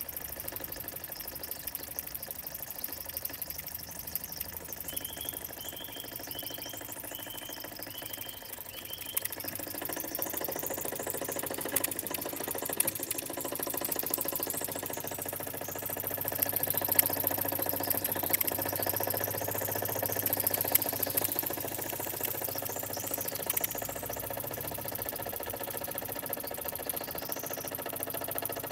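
Parkinson toy steam engine running: its single small cylinder and flywheel beat out a rapid, even chuffing and rattling. The running grows louder about a third of the way in and eases back near the end.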